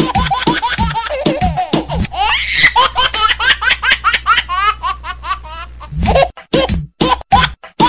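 A baby's laughter, chopped up and repeated in time over a disco dance beat with a steady kick drum. There is a run of high, rising squeals of laughter in the middle, and the beat turns choppy with short breaks near the end.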